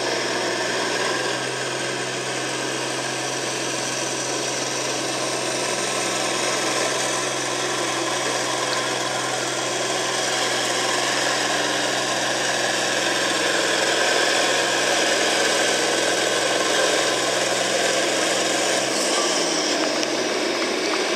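A John Deere farm tractor's engine idling steadily at the start line, hitched to the pulling sled whose own engine also runs; near the end the low engine note drops in pitch.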